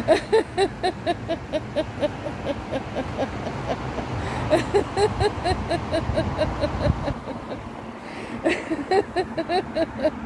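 A woman's laughter-yoga laughing, a continuous run of rapid 'ha-ha-ha' pulses, about four or five a second, breaking off briefly about seven seconds in and then starting again. A low road-traffic rumble runs underneath, strongest around the middle.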